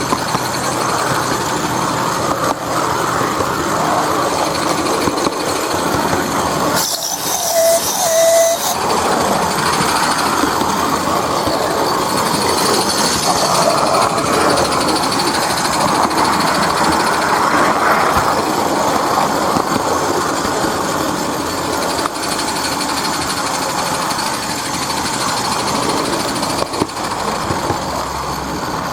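SM32 garden-railway goods train running along the track: a steady clattering rattle of wheels and wagons.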